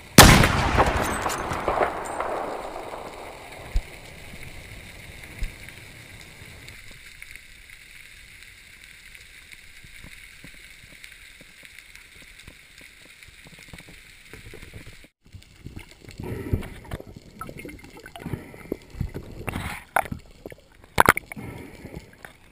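A speargun firing underwater: a sudden loud crack whose noise fades over about two seconds, then a low steady underwater hiss. After a break, irregular bubbling, sloshing and splashes as the diver comes up to the surface.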